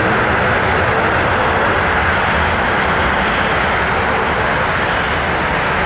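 Airbus A320's IAE V2500 turbofans at climb power as the jet departs, a steady jet noise with a strong hiss in the middle range and a few faint steady tones beneath.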